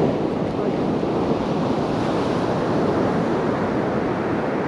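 Sea surf washing onto the beach, a steady rush of breaking waves, with some wind on the microphone.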